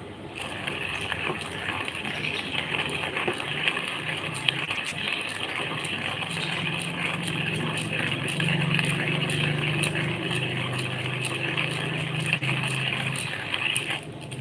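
A coffee machine running, a low motor hum under a steady hiss, starting about half a second in.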